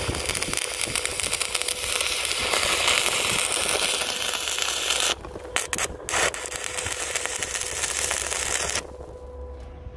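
Stick (arc) welding on steel: the electrode's arc runs steadily, breaks off for about a second around the middle with a couple of short restrikes, then runs again and stops about a second before the end.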